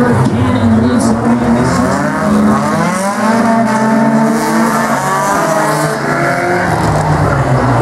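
Several small race-car engines running hard at once in a figure-8 race, their pitches rising and falling as the drivers accelerate and lift.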